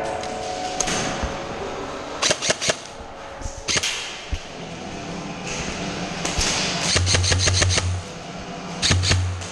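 Airsoft guns firing indoors in short bursts of rapid snapping shots. The later bursts, about seven and nine seconds in, are longer and carry a low buzz under the shots.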